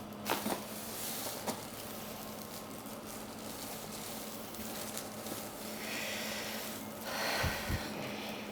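Neck joints popping during a chiropractic neck adjustment: a quick double crack shortly after the start and another about a second and a half in, then soft rustling near the end.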